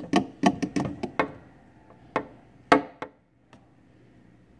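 Plastic cricket carrier tube being knocked and tapped: a quick run of about seven sharp knocks in the first second or so, then two more, the second of them the loudest, about two and three seconds in.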